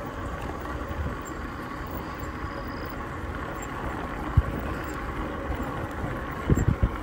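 Ecotric fat-tire electric bike riding over cracked asphalt: steady tyre and road rumble, with a faint steady whine. There is a sharp knock about four seconds in and a couple of thumps near the end.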